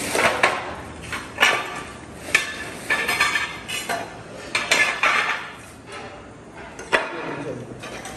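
Leftover ceramic tiles and tile offcuts clinking and clacking against each other as they are picked up off the floor and stacked into a bag and a box, with a sharp clack about every second and scraping between.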